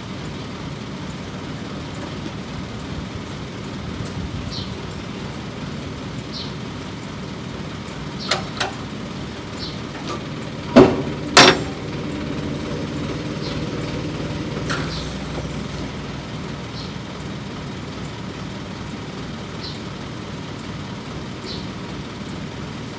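Aichi manlifter truck's engine idling steadily, with a pair of small clicks about eight seconds in and two loud sharp knocks close together near the middle.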